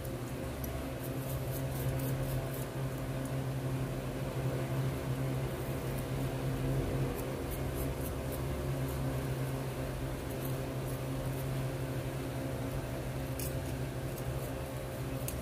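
A toothbrush scrubbing a gold ring in soapy water, giving faint scratchy ticks over a steady low hum.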